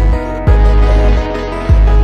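Background music with a deep, pulsing bass.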